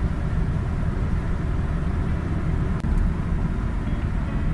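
Chevrolet Captiva cabin on the move: steady low road and engine rumble with no wheel-bearing drone, the sign that the newly replaced left wheel hub runs quiet. One faint tick about three seconds in.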